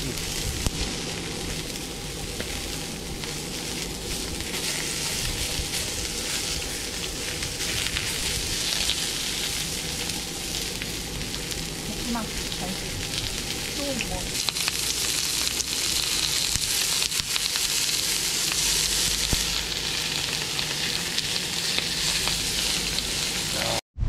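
Food sizzling steadily as it fries in a hot pan.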